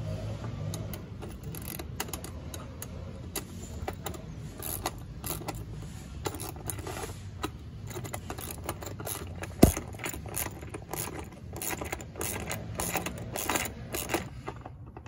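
Hand wrenches clinking and scraping against the bolts of a stainless steel transducer mount as they are tightened, in an uneven string of small metallic clicks, with one sharper clack about ten seconds in.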